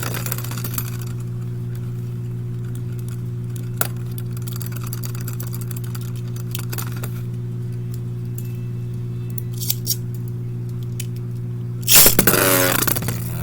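A steady low hum with a few faint clicks. About twelve seconds in, a loud whirring rush with short rising sweeps sets in, like Beyblade launchers being ripped for the next battle.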